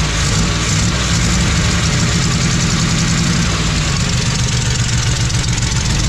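Dodge Ram pickup's gasoline engine running steadily just after starting, fed from a jerry can through a temporary external fuel pump.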